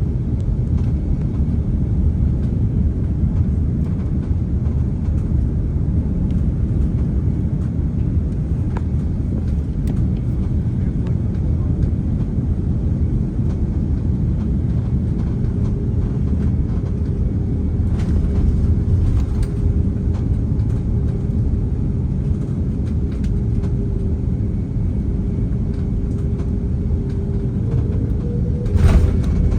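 Steady low rumble of cabin noise inside an Airbus A330-300 airliner on approach, with a faint steady tone coming in about halfway through and a few light clicks.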